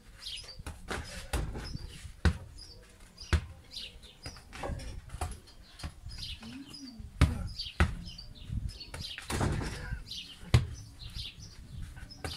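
A basketball being dribbled, bouncing on the ground in a series of irregularly spaced thuds, with birds chirping in the background.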